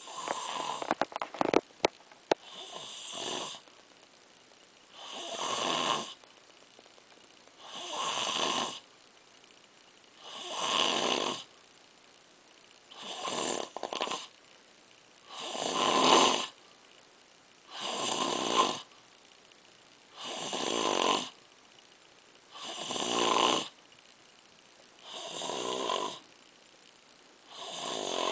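Someone asleep and snoring in a steady rhythm, one snore about every two and a half seconds with quiet breathing gaps between. A few short clicks come in the first couple of seconds.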